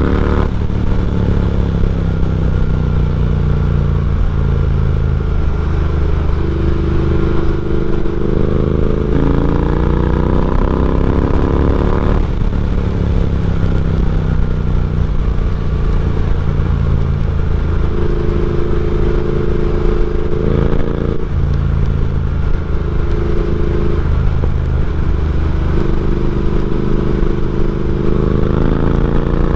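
Triumph Speed Twin 1200 parallel-twin engine running loud through a de-catted X-pipe and aftermarket slip-on exhausts while under way. The engine note climbs slowly and changes pitch suddenly about twelve seconds in and again about twenty-one seconds in.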